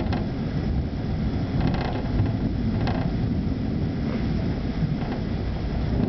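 Thunderstorm thunder rumbling continuously and low, with a few faint rattles, about four of them, of the kind thunder shakes out of windows.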